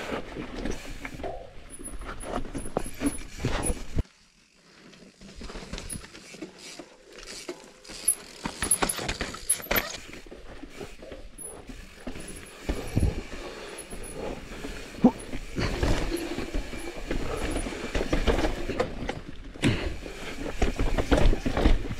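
Mountain bike riding over a rocky technical trail: tyres rolling and the bike rattling, with irregular knocks over the rock. It drops suddenly to much quieter about four seconds in, then builds back up.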